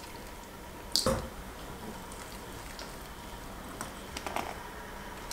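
A single sharp knock about a second in, then a wire whisk stirring wet chocolate cake batter in a ceramic bowl, squishing and clicking against the bowl's sides near the end.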